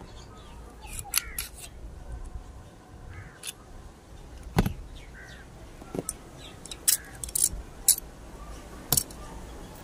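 Metal parts of a TT 30 bore pistol being handled, giving a series of sharp, irregularly spaced metallic clicks and clacks, with the loudest ones in the second half.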